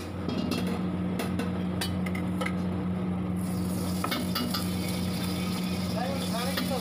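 A metal ladle clinking against a steel wok on a gas burner, then oil poured from the ladle into the hot wok, sizzling from about three and a half seconds in. A steady low hum runs underneath, and the ladle scrapes the pan near the end.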